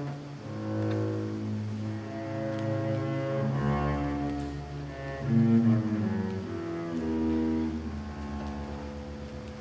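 Double bass bowed in slow, long held notes, moving to a new pitch every second or two, sometimes with two notes sounding together.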